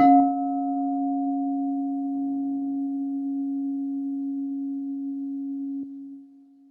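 Crystal singing bowl struck once, ringing with a steady pure low tone and a fainter higher overtone. About six seconds in the ring drops off sharply and fades to a faint hum.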